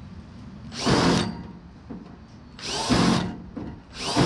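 Electric drill run in three short bursts against the car body's sheet steel, each burst rising and falling in pitch. The drill is working at an angle, so the bit keeps walking off the spot.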